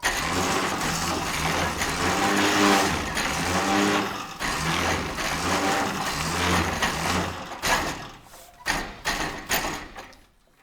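Fire truck engine running under a loud hiss, its low note swelling and fading about once a second. Near the end the hiss dies away into a few sharp knocks, and the sound cuts off.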